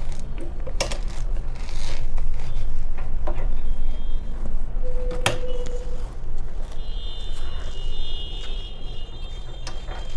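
Industrial sewing machine running as a blouse cup is stitched in place: a steady motor hum with scattered clicks as the fabric is handled.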